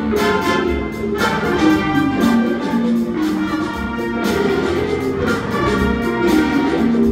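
A jazz big band plays a funk tune live. The brass and saxophone section plays ensemble lines over drum kit, bass and guitar, with a steady beat and strong horn entries about a second in and again about four seconds in.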